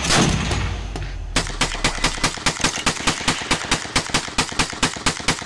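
One heavy rifle shot with a long ringing tail. After a short gap comes a long, even string of rapid gunshots, about seven a second, from a drum-fed long gun fired in quick succession, stopping near the end.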